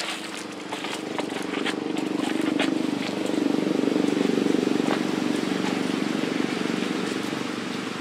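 An engine running steadily, growing louder to a peak about halfway through and then fading, with scattered light clicks over it.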